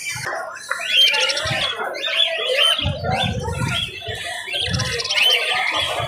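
A cage of Java sparrows chirping: many short, quick rising-and-falling notes, coming thickest about a second in and again near the end.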